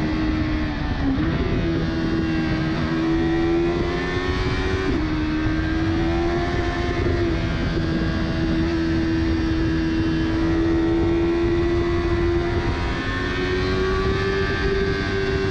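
Yamaha R3's 321 cc parallel-twin engine running hard at high revs at speed. The revs dip briefly about a second in and again around five seconds in, then climb higher near the end, over steady wind and road noise.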